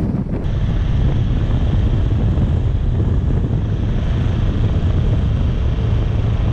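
4WD driving on soft beach sand: a steady, loud low rumble of the engine and tyres, mixed with wind buffeting the microphone.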